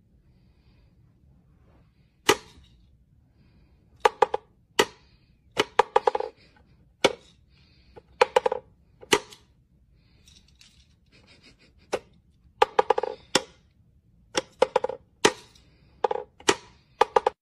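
Wooden whack-a-mole cat toy clacking: sharp, irregular wooden knocks as its pegs are pushed up through the holes and a cat bats at them, some knocks ringing briefly. The knocks come singly and in quick clusters of two or three.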